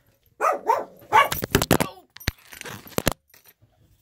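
A dog barks several times in quick succession, followed by a few sharp clicks and knocks about two to three seconds in.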